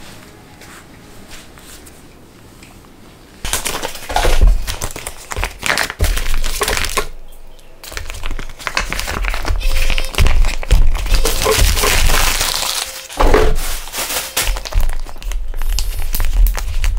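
Plastic bags and food packages crinkling and rustling as they are handled and packed into a freezer, with low bumps among them. The handling starts suddenly about three and a half seconds in, after a quiet stretch.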